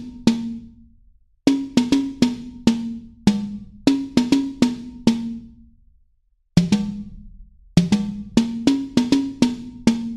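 Background music: a drum part of sharp, ringing hits in quick phrases, broken by two short near-silent pauses, about a second in and again around six seconds in.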